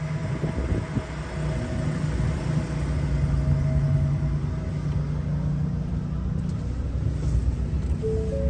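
Steady low hum, with a faint steady higher tone over the first half.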